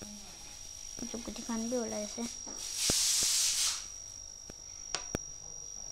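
A cricket trilling in one steady high note throughout, with a hiss lasting about a second near the middle and a few sharp clicks near the end.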